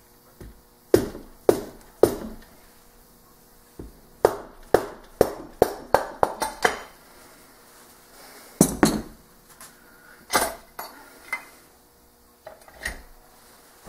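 Sharp metallic knocks and clinks from the crankcase and crankshaft of a Rotax 503 two-stroke engine being split and handled, with a quick run of about ten taps between four and seven seconds in.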